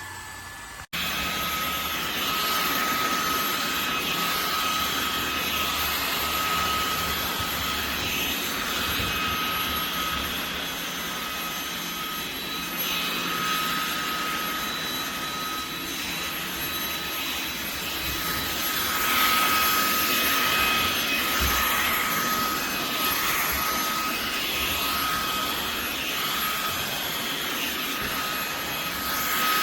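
Fanttik V8 Apex cordless handheld car vacuum running, a steady high motor whine over a rushing hiss of air that rises and falls a little as it works. It starts abruptly about a second in.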